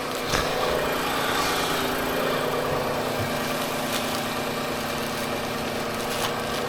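2005 Honda Odyssey's V6 engine idling steadily with a freshly replaced belt tensioner and accessory belt. It runs quiet with no belt squeak, the sign that the faulty tensioner pulley behind the squeal has been cured.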